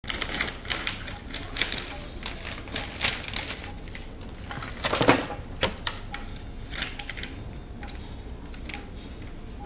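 Irregular crinkling and clicking of plastic and paper sterile packaging as an epidural kit is opened and its syringes, needles and catheter are set down on a cloth drape, with a louder crackle about five seconds in.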